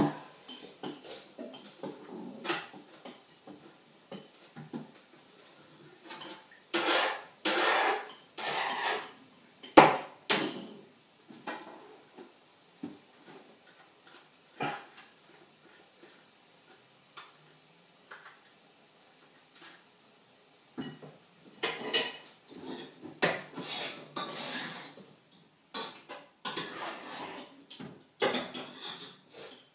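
Kitchen clatter: dishes and cutlery being handled on a worktop, a run of clinks and knocks with a few longer scraping noises in between.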